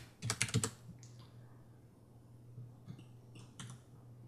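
Computer keyboard keys and clicks: a quick cluster of about half a dozen keystrokes near the start, then a few scattered single clicks. A steady low hum runs underneath.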